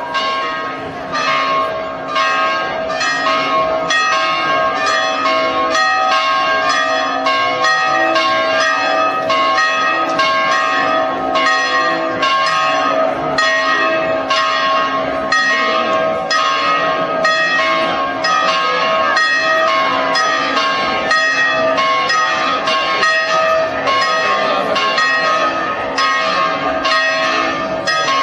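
Church bells ringing a festive Easter peal: several bells of different pitch struck in quick, even succession, about two strikes a second, their tones ringing on over each other.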